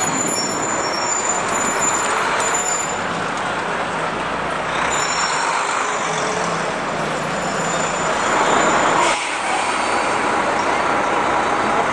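Busy city street traffic: a steady mix of cars, taxis and trucks passing, changing abruptly about nine seconds in.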